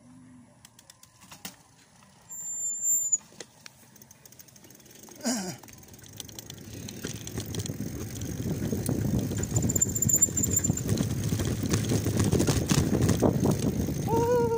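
Mountain bike rolling fast down a dirt and grass trail: tyre noise and wind on the microphone build from about six seconds in as the bike picks up speed. A short high squeal comes about two seconds in, and a brief pitched call near the end.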